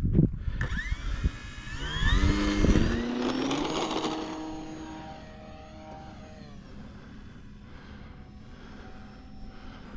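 The electric motor and propeller of a HobbyZone Apprentice S2 RC trainer plane spin up to full throttle for a takeoff roll: a loud whine rising in pitch over the first couple of seconds, which then holds and gradually fades as the plane moves away.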